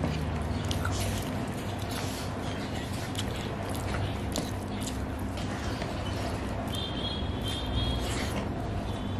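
Bare fingers mixing and squishing rice with soft mashed food on a plate, with many small wet clicks, over a steady low hum.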